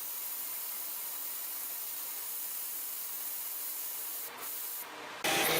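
CNC stone-engraving machine cutting stone, a steady hissing grind, with two brief dips near the end. A louder machine sound with a steady whine cuts in just before the end.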